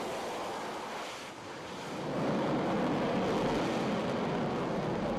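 Jet noise from an AV-8B Harrier's turbofan engine: a steady rush with no clear tone that grows louder about two seconds in.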